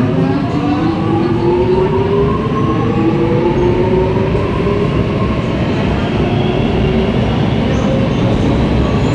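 Electric metro train heard from inside the carriage as it pulls away from a station: the traction motors whine in several tones that rise steadily in pitch as the train picks up speed, over a continuous rumble of wheels on track.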